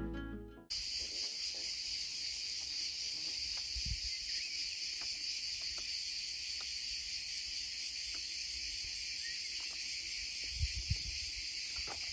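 A dense, steady chorus of cicadas singing, an unbroken high buzz. Two brief low thumps come about ten and a half seconds in.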